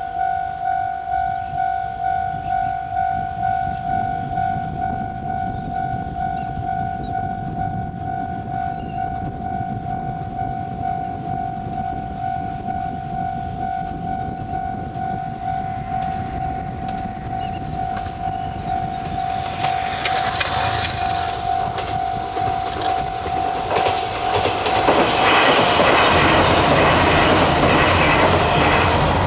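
Level-crossing warning bell ringing with a steady, pulsing ding-ding while a train's rumble builds. Near the end the train passes over the crossing, loud, its wheels clattering over the rails and mostly drowning out the bell.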